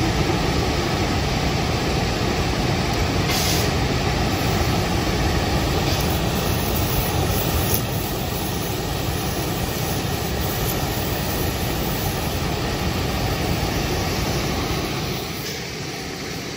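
Gas brazing torch flame burning with a steady rush while diamond segments are silver-brazed onto a steel saw-blade core. It eases off about fifteen seconds in.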